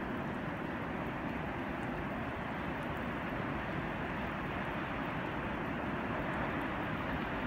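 Steady rushing noise of heavy surf breaking on a rough sea, mixed with wind.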